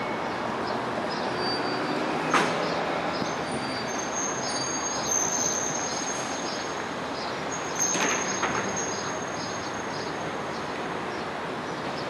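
Vintage electric tram creeping along rails inside a depot shed, its wheels giving a high thin squeal on and off. Sharp knocks sound about two seconds in and again around eight seconds in.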